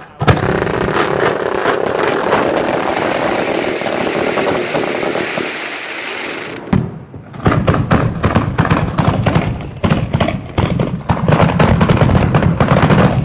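Fireworks going off at close range: a steady rushing roar for the first six seconds, then, after a sharp bang about seven seconds in, dense rapid crackling and bangs over the roar of a ground fountain.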